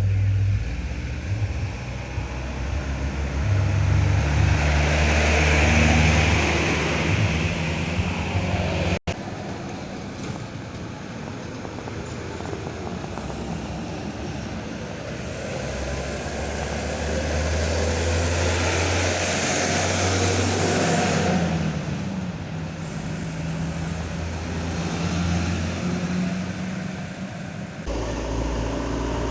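Heavy road traffic: large buses and trucks passing with diesel engines running, the sound breaking off and changing abruptly about nine seconds in. A high hiss rises over the engines for several seconds in the second half.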